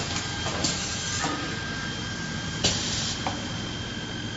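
Chocolate chip depositing machine running with a steady hum and a thin whine, its pneumatic depositor head letting out two short hisses of air as it cycles, the second starting with a sharp click.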